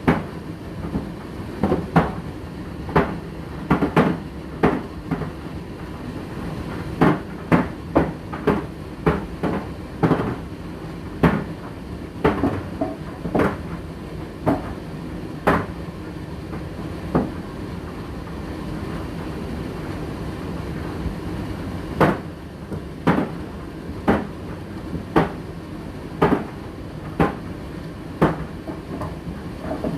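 Indesit IDC8T3 condenser tumble dryer running with a steady motor hum. The tumbling load thuds against the drum at irregular intervals, about one to two knocks a second, and the knocks pause for a few seconds past the middle.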